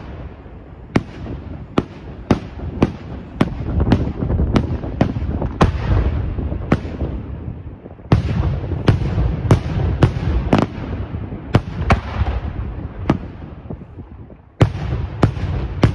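Aerial fireworks shells bursting in quick succession: sharp bangs about one to two a second over a continuous low rumble. A fresh, louder volley starts suddenly near the end.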